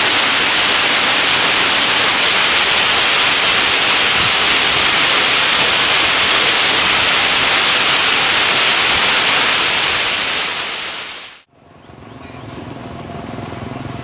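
Waterfall pouring onto rock, a steady loud rushing hiss. It fades out about ten seconds in, giving way to quieter roadside ambience with a low engine hum growing louder near the end.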